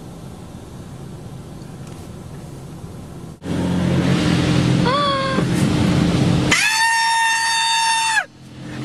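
Inside a car in an automatic car wash, a low steady hum. About three and a half seconds in, the car wash's spray suddenly starts hitting the car in a loud steady rush. Over it comes a short yelp, then near the end a long, high, held scream.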